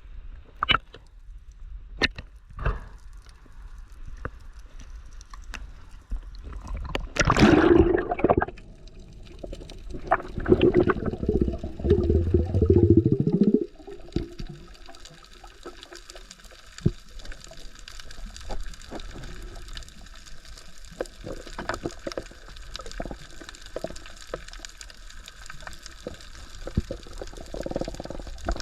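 Sea water sloshing and gurgling, with scattered clicks. There are louder rushes of water about seven seconds in and again from about ten to fourteen seconds.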